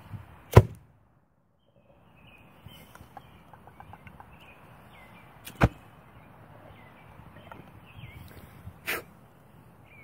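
Three sharp pops, the first about half a second in by far the loudest, as the alcohol vapour from hand sanitizer in a small bottle is lit and burns with a blue flame.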